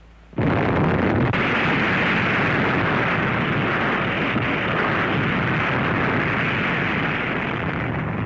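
Atomic bomb blast sound: a sudden onset about half a second in, then a steady rushing roar that eases slightly towards the end.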